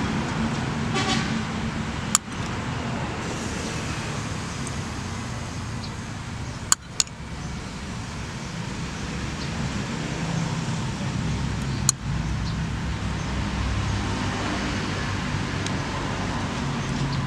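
Steady low rumble, with four sharp clinks of a metal spoon as the chili and fish-sauce filling is spooned into snail shells on the grill; two of the clinks come close together near the middle.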